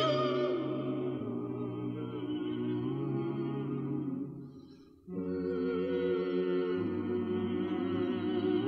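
Male vocal ensemble singing wordless, held chords in close harmony. The chord fades away about halfway through, and after a short gap the voices come back in together on a new chord.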